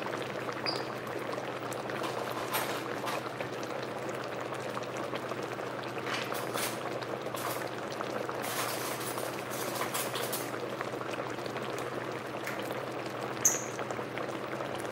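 Thick curry simmering in an enamelled cast-iron pot on an induction burner, bubbling with scattered soft pops over a steady low hum. A sharper click comes near the end.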